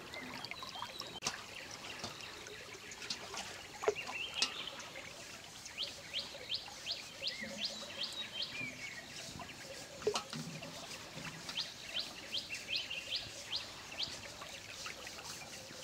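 A bird calling in runs of short, sharp, quick notes, about three a second, over soft water sounds from the river.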